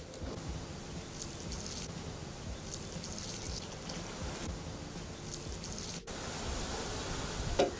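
Hands rubbing and mixing a sesame mixture in an aluminium basin while jaggery syrup is poured in: soft repeated rustling and scraping, with a single sharp knock near the end.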